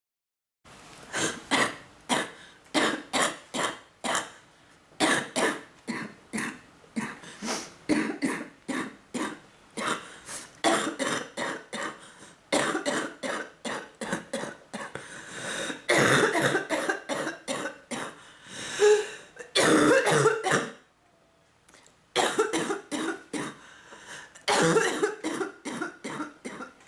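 A person with bronchitis in a coughing fit: runs of short, rapid coughs, several a second, with a brief pause about 21 seconds in before the coughing starts again.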